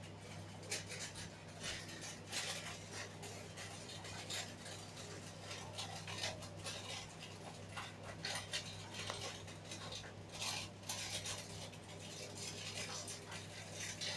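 Small plastic Lego pieces clicking and rattling on a tabletop as they are handled and fitted together, in irregular light clicks, over a steady low hum.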